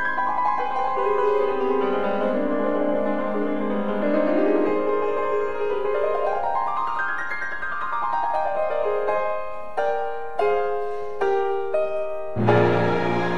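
Background piano music: a run of notes climbing and falling back, then single notes, then a louder chord near the end.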